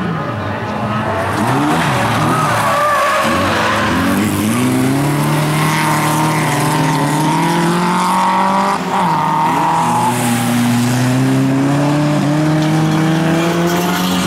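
Two bilcross race cars, a VW Beetle and a white saloon, running hard at full throttle, engine pitch climbing and dropping several times at gear changes, with tyres sliding on loose gravel.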